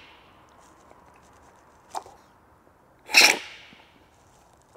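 A loud, sharp cupping slurp about three seconds in: coffee sucked hard off a cupping spoon to spray it across the palate for tasting. A short click comes about a second before it.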